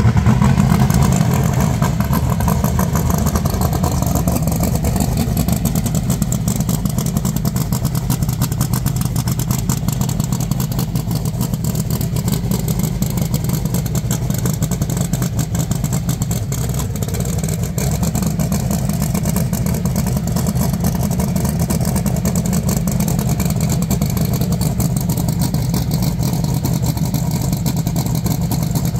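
Pro Mod drag-race car's big engine idling with a loud, steady rumble, a little louder in the first couple of seconds.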